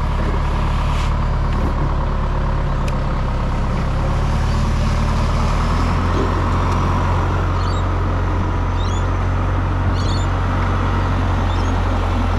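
Truck engine running steadily, its hum deepening and settling about five and a half seconds in. Faint short high chirps come in the second half.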